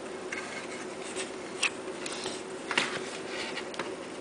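Light clicks and taps of a plastic Lego truck being handled and set down on a table, a few scattered knocks with the loudest near the end, over a faint steady hum.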